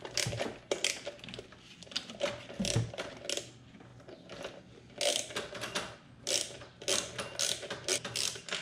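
Hand ratchet wrench clicking in five or six short runs of rapid clicks as it is swung back and forth, backing out a bolt on an engine's intake.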